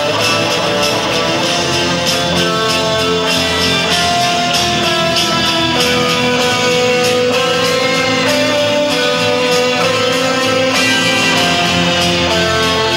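Live rock band playing an instrumental passage: an electric lead guitar carries a melody of long held notes, with one note bent about two-thirds of the way through, over steady drums and strummed guitar.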